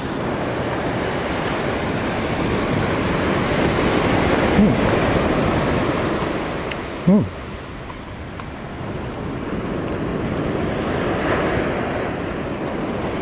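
Ocean surf breaking on a sandy beach: a steady rush that swells about four seconds in, eases off around eight seconds, then builds again.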